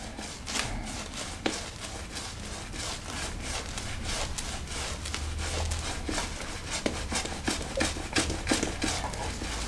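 Zenith 502 silvertip badger shaving brush working wet shaving cream into a lather directly on the face over two days' stubble: many quick, irregular rubbing strokes of wet bristles.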